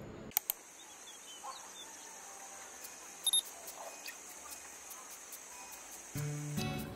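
Faint outdoor ambience: a steady high hiss with a few short bird chirps. Soft guitar music comes in near the end.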